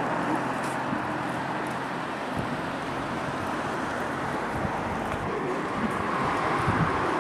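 Outdoor street ambience: a steady wash of road traffic noise.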